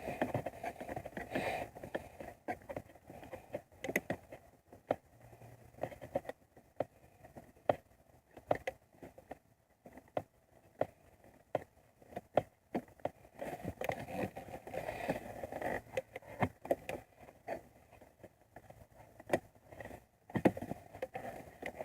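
Scattered light clicks, taps and scrapes of hands working parts and tools into place on a car, irregular and spaced out.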